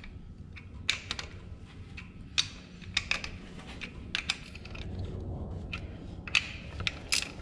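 Ratchet wrench and socket clicking and tapping on metal in irregular short bursts while the bolts of an aluminium water pump are run down, with handling noise in between.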